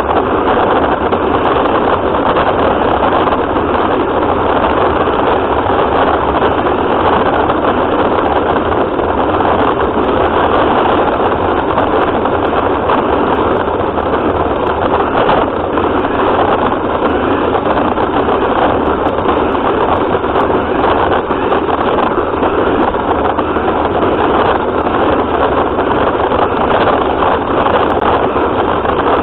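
Radio-controlled car driving, heard from a camera mounted on it: a loud, steady running noise from its motor and drivetrain that holds even throughout.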